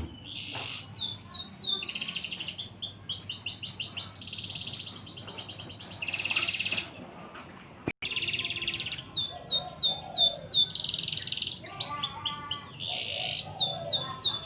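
Domestic canary singing: fast trills and rolls of quickly repeated high notes, one phrase after another, with a sudden brief cut-out about halfway through.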